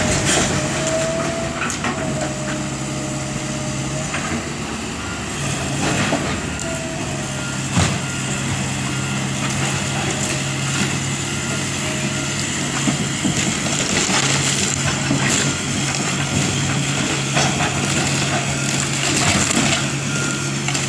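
Komatsu hydraulic excavator's diesel engine running steadily as it pulls apart a wooden building, with scattered cracks and crunches of splintering wood and debris, the sharpest about eight seconds in. A faint beeping repeats evenly in the background.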